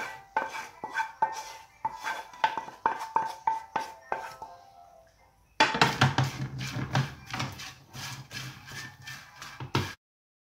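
Wooden spatula scraping and knocking against a nonstick frying pan while tossing jaggery-coated popcorn, in quick repeated strokes. The stirring dies down about halfway, starts again suddenly, and stops dead near the end.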